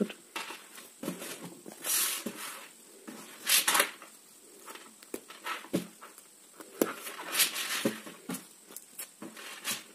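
A felt cloth book with Velcro-backed pieces being handled: bursts of rustling and brushing felt with a few short scratchy rips, the loudest about two seconds in, again near three and a half seconds and around seven seconds, with soft knocks in between.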